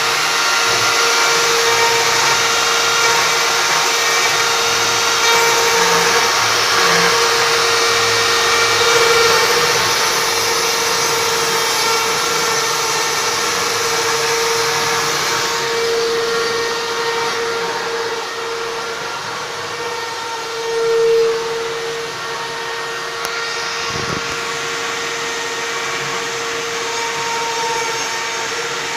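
CNC router spindle running with a steady whine while cutting into wood. The cutting noise eases somewhat past the middle, with a short louder swell about three-quarters through.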